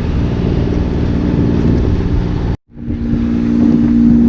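A sailboat's engine running steadily under way, a constant hum over water and motion noise. A little past halfway the sound cuts off abruptly for a split second, then the hum comes back.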